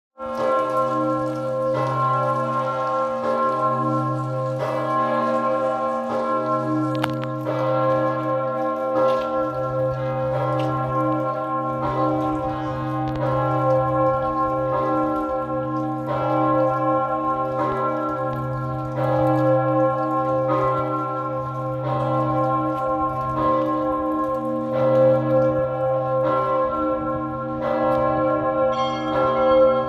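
Augustin, a very large swinging church bell and the third largest in the Czech Republic, being rung: a deep, steady hum with the clapper striking again about every second or so, each stroke ringing on into the next.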